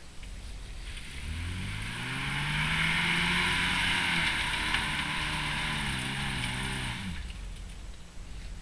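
Geo Tracker's engine revving up about a second in, holding high revs with small rises and dips as the truck pulls on a steep off-camber slope, then dropping back near the end.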